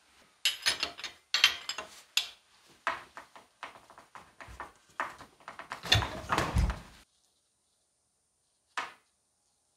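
Metal clinks, knocks and scrapes of an open-end spanner working a rusty hex nut clamped in a bench vise. A quick series of sharp strikes ends with heavier thuds about seven seconds in, and a single click comes near the end.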